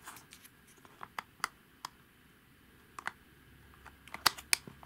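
Plastic clicks as the battery compartment cover of a solar garden lamp is fitted and pressed shut: a scattering of single clicks, the two loudest coming close together near the end.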